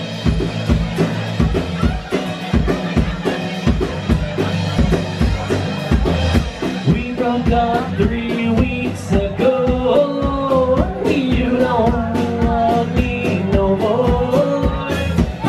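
Live band playing a song with a steady drum beat and acoustic guitar; a man's lead voice starts singing about halfway through.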